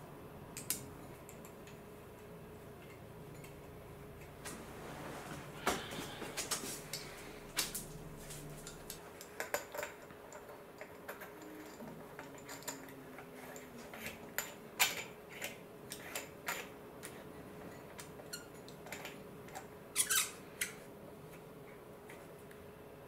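Irregular light metallic clicks and taps as small engine parts are handled and fitted by hand: the thermostat housing adapter, its bolts and fitting going onto an RB26 engine block. A faint steady hum runs underneath.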